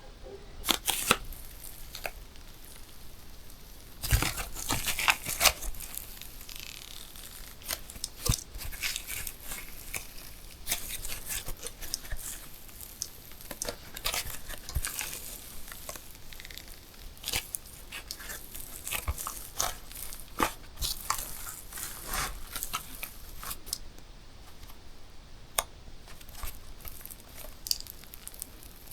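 Balloons being handled and popped: irregular sharp pops and snaps, with rubbery crinkling and rustling between them and a denser cluster of pops about four to five seconds in.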